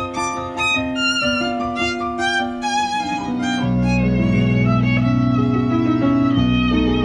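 Live violin playing a melody with vibrato, accompanied by an electronic keyboard; the accompaniment settles into sustained low notes partway through.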